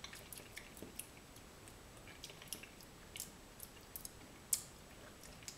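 Faint, irregular lip smacks and mouth clicks of someone tasting a spoonful of raw apple sponge-cake batter, with one sharper click about four and a half seconds in.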